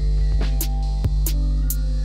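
Background music with a steady deep bass and repeated sharp percussion hits.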